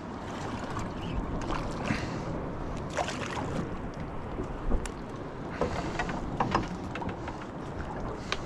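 Steady wind on the microphone and sea water around a small boat, with a few faint clicks and knocks scattered through.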